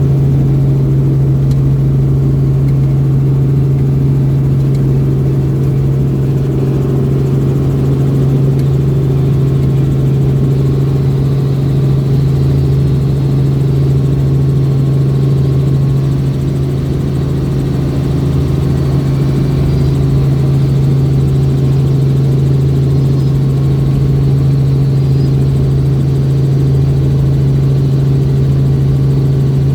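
Robinson R44 helicopter running steadily, its six-cylinder Lycoming piston engine giving a constant low hum under the rotor noise, with a slight dip in level about halfway through.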